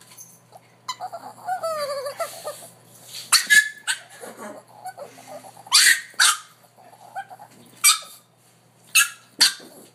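Dog making a wavering whining call that slides down in pitch, then a string of about seven short, sharp barks or yips in uneven pairs.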